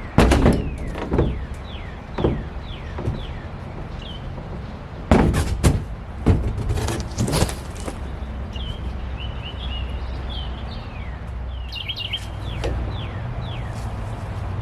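Knocks and clattering thuds of wooden boards being worked loose and pulled down from a screwed-together porch enclosure, a few single ones early and a cluster about five to seven seconds in. Small birds chirp in the background, more often in the second half.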